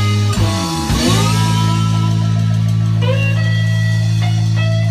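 Blues band playing with slide guitar. Notes glide down about half a second in and settle into a long held low note, and bent slide notes come in around three seconds. Drum hits fall away after the first second.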